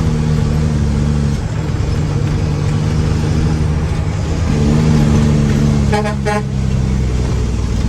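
Mack dump truck's diesel engine running steadily, dropping in speed about a second in and revving up again about halfway through, as it works during tipping of the granite load. A short horn toot comes near the end.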